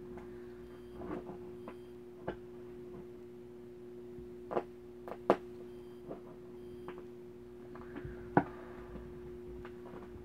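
A knife blade stabbing and scraping at the packing tape and cardboard of a shipping box: a string of short scratches and taps, the sharpest about five and eight seconds in, over a steady low hum.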